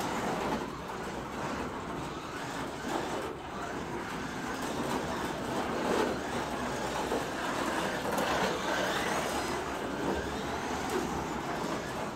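Carrera Digital 1/24 slot car (a Ferrari) lapping the plastic track: its electric motor and tires running steadily, swelling and fading as it goes around, with the car sliding out when pushed through the corners.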